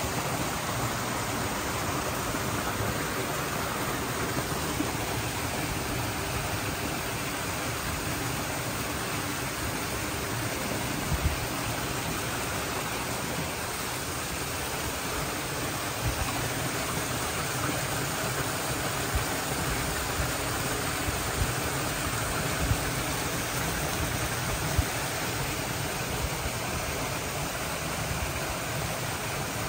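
Steady rush of water from a rock-garden fountain cascading over rocks into a pool, with a few soft low bumps here and there.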